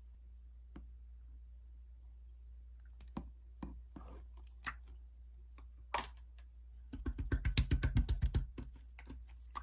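Keyboard typing: a few scattered keystroke clicks, then a fast run of keystrokes about seven seconds in.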